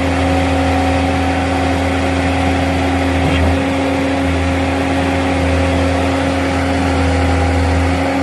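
JCB 155 skid steer loader's diesel engine running at a steady speed, with an even, unchanging engine note.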